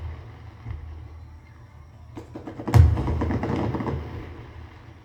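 Fireworks played back through a Yamaha YAS-207 soundbar. One big boom comes near the middle, with a deep low thud and a crackling tail that fades over about two seconds.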